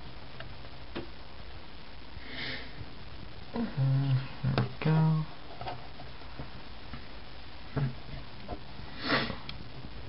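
A person sniffs through the nose near the end, with a shorter breath noise a couple of seconds in. In the middle come a few short, low, wordless vocal sounds. Faint clicks of small parts being handled sound here and there.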